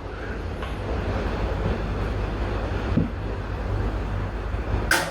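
Automatic transmission fluid being poured from a bottle through a filler into a Harley-Davidson Electra Glide's primary chaincase: a steady gurgling pour with a low rumble, stopping near the end.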